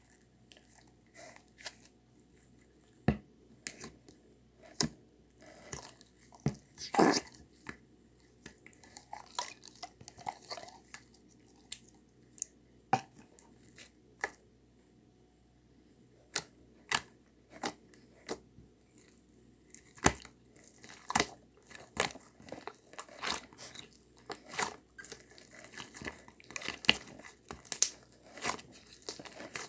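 Hands squishing and stretching green mint slime, giving irregular sticky clicks, pops and crackles, some sharp and loud, with a longer crackling smear about seven seconds in.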